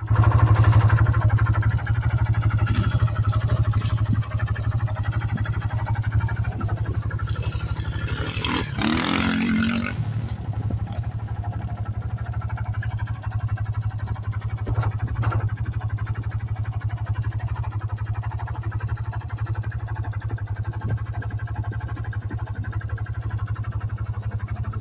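Off-road vehicle engine idling close by, a steady low hum, with a dirt bike engine running out in the field. About eight to ten seconds in there is a louder surge whose pitch bends up and down.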